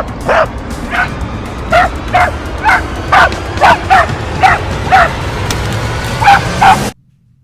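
Mini goldendoodle yipping over and over, about two short yips a second, each dropping in pitch, over a steady low rumble. It cuts off suddenly near the end.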